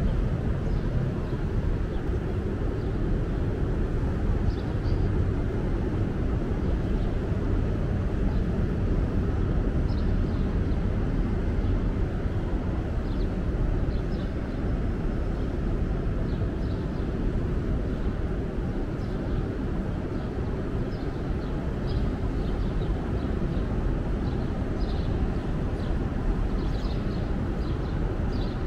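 Steady outdoor rumble in the low range, with short, high chirps scattered through it.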